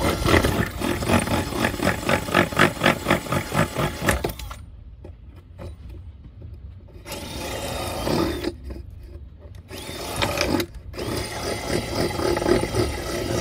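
Power drill with a hole saw cutting through the boat's wooden cabin side from the outside, heard from inside and juddering about four times a second. It stops about four seconds in, then runs again in short spells.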